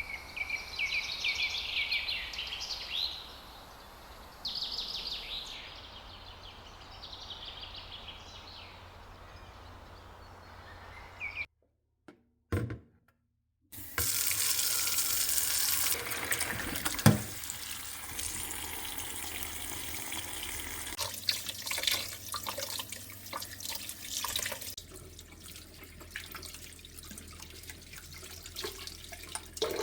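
Bird chirping in repeated short calls for the first ten seconds or so; after a brief dropout, water running steadily from a tap, with knocks and clatter of things being handled in it.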